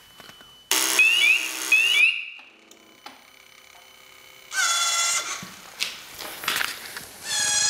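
Motorcycle security alarm sounding in three bursts of shrill electronic tones. The first burst, about a second in, is the longest and carries quick repeated rising chirps; two shorter tones follow, one mid-way and one near the end.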